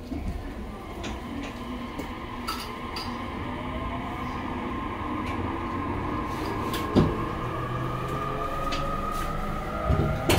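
Electric commuter train running, heard from inside the car: low rumble with a motor whine slowly rising in pitch as it speeds up, and a few sharp knocks, the loudest about seven seconds in and two near the end.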